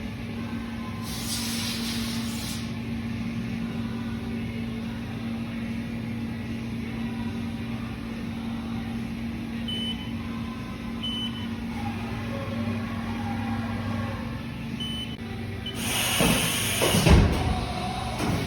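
Haas VF-4 vertical machining center running with a steady hum. A short hiss comes about a second in, a few brief high beeps follow in the middle, and a louder clattering stretch with thuds comes near the end.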